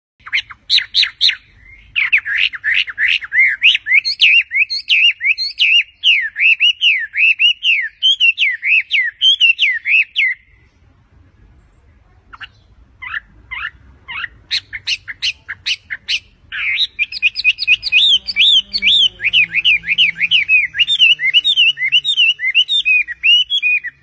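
Chinese hwamei (laughingthrush) singing: long runs of rapid, varied whistled notes, broken about halfway by a short pause and then a string of separate sharp notes before the rapid song resumes.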